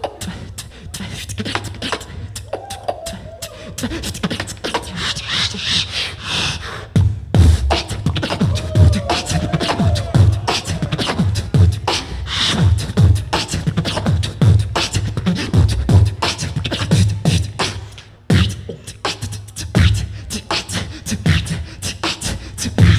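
A solo beatboxer performs into a handheld microphone. Sharp snare and hi-hat clicks run over deep kick-drum hits, with short sung bass glides. About seven seconds in, the kicks grow heavier and settle into a steady beat, with a brief break near the end.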